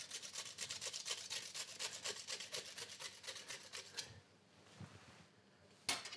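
Truffle being shaved on a metal truffle slicer, a rapid run of rasping strokes, several a second, which stops about four seconds in. A single sharp knock near the end.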